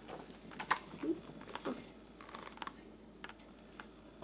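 A scattering of light clicks and taps in small clusters, with a faint short sound like a murmur about a second in.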